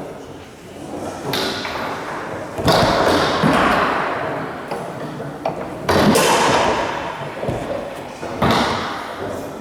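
Foosball table in play: the ball and rods striking hard, with four loud knocks about a second or more apart, each trailing off in the echo of a large hall.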